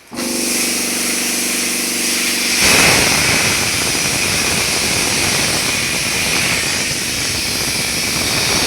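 Plasma cutter with a built-in air compressor: a steady hiss of air over the machine's hum, then about two and a half seconds in a much louder, rougher rushing hiss takes over and holds steady as it cuts.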